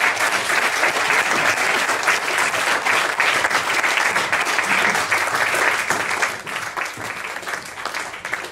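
Theatre audience applauding, the clapping thinning out and fading over the last couple of seconds.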